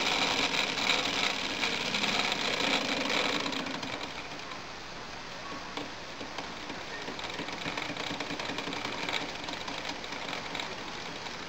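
The small engine of a Wilesco model steam tractor running fast, with a rapid, even mechanical clatter and hiss. It is louder for about the first three seconds, then settles a little quieter.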